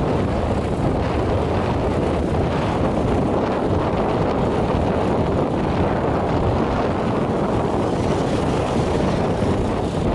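Wind rushing over the microphone of a moving motorbike, mixed with the bike's engine and road noise. It is a steady, heavy low rumble with no change in pace.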